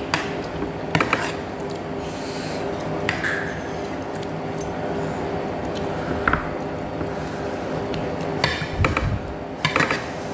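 Eating noodles: wooden chopsticks click and scrape against a ceramic bowl, with short bursts of slurping and chewing, loudest near the end as noodles are lifted to the mouth.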